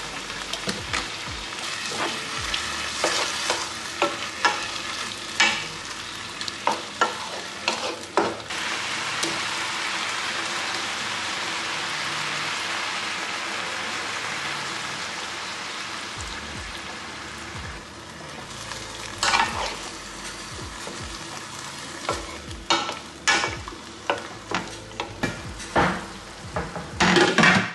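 Food sizzling in a hot pan while it is stirred, with utensil clicks, knocks and scrapes against the pan. The sizzle runs steady through the middle, and the sharp clacks come thicker near the end.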